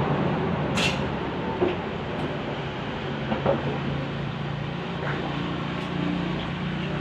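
A metal shovel scraping and pushing wet mud across a concrete floor, with a few short scrapes and knocks over a steady low rumbling hum.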